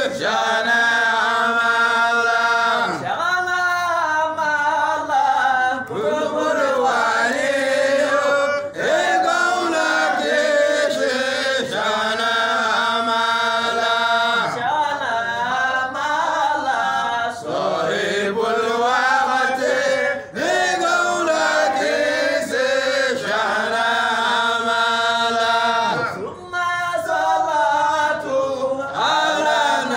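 Men's voices chanting together a Sufi devotional chant, phrase after phrase of about three seconds each with long held notes.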